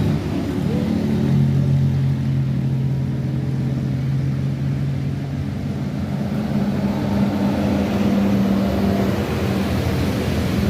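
Tour bus engine running steadily. Its hum shifts to a higher pitch about halfway through.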